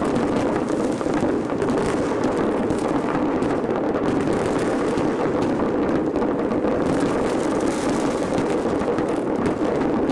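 Many fireworks going off at once, their bangs and crackles merging into a steady din with no single burst standing out.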